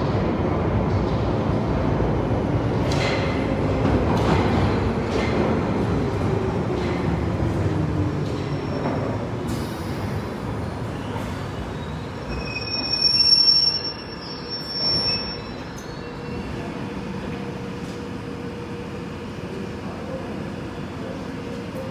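London Underground 1973 Stock Piccadilly line train pulling into the platform: rumbling and clicking over the rails with a falling whine as it brakes to a stop. About thirteen seconds in, a short burst of high tones and air as the doors open, then the standing train's steady hum.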